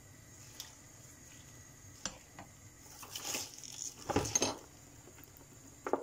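A stainless steel pot knocked and scraped as a wooden spoon stirs and presses down fresh leafy greens in it. The handling comes as scattered knocks, with the loudest bout of clattering about four seconds in.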